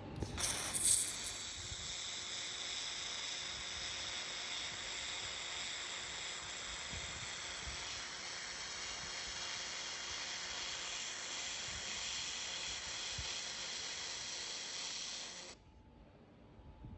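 2000 W handheld laser welder running a weld on mild steel without filler wire: a steady hiss with the shielding gas flow, starting with a brief sharper burst and cutting off suddenly after about fifteen seconds.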